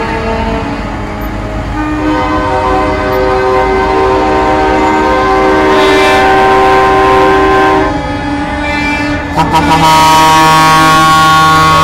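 Semi-truck air horns blowing long multi-tone chords. One chord is held for about six seconds, then after a short break a different chord starts about nine and a half seconds in, over the low rumble of passing diesel trucks.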